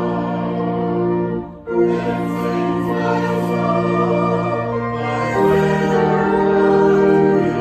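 Choral music: a choir singing held chords, with a short break about a second and a half in and a change of chord about five and a half seconds in.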